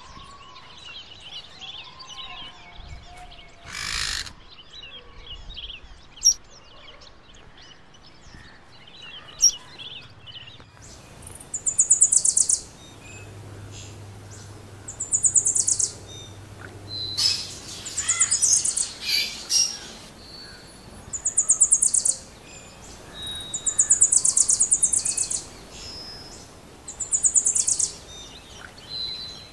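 Birds chirping faintly at first, then, from about ten seconds in, a loud, high, rapid trilling call about a second long, repeated roughly every three seconds.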